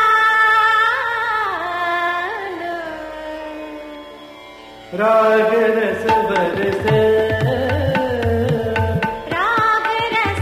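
Indian classical music: a voice holds and bends a melodic line that fades away. About halfway through, a new passage starts abruptly, with tabla strokes beneath the melody.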